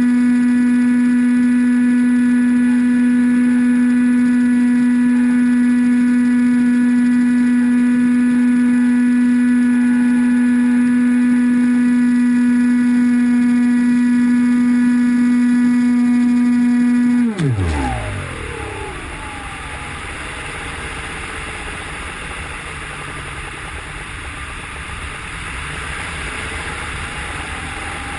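Electric motor and propeller of an AXN Floater-Jet RC plane running at a steady high pitch, then throttled off about 17 seconds in: the pitch drops away fast and only the rush of air over the gliding plane remains.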